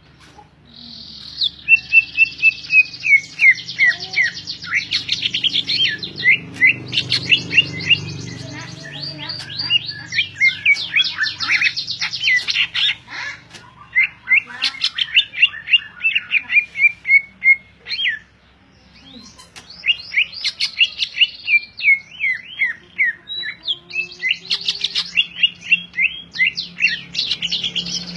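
Cucak ijo (greater green leafbird) singing nonstop: fast runs of sharp down-slurred whistles mixed with rapid chattering trills, breaking off briefly about two-thirds through. A faint steady low hum runs underneath.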